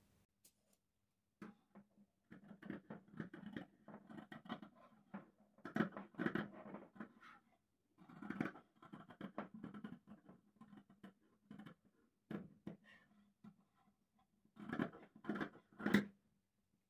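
Scissors snipping through several layers of folded fabric, faint, in runs of short sharp cuts separated by brief pauses.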